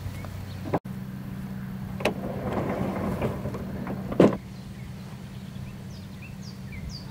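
A pickup truck-bed storage drawer pulled out: a knock, a rumbling slide lasting about two seconds, then a loud thump as it reaches its stop. Short bird chirps follow near the end, over a steady low hum.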